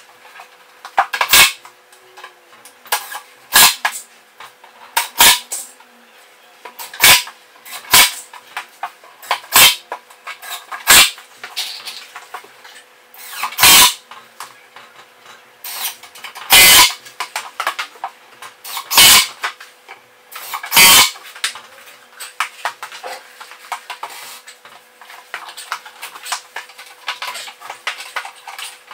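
Sharp knocks and clatter from MDF panels and hand tools being handled, coming irregularly every second or two with smaller clicks between, over a faint steady hum.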